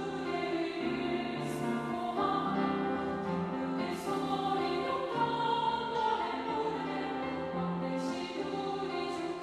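Sopranos and altos of a choir singing a Korean sacred anthem in unison, moderately loud, over a rhythmic piano accompaniment.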